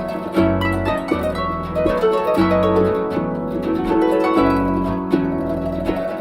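Harp music: a flowing line of plucked notes over deep, ringing bass notes.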